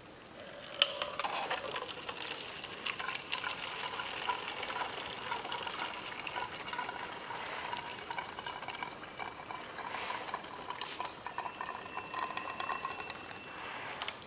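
Thin, watery liquid paint stripper pouring from a metal can into a plastic spray bottle: a steady trickle that starts with a knock about a second in.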